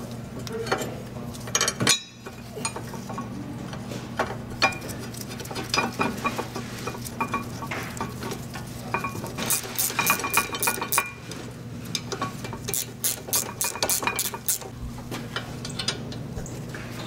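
Metal clinks, taps and scrapes as a brake caliper bracket is handled and fitted back onto the front hub, with runs of rapid clicking about ten and thirteen seconds in.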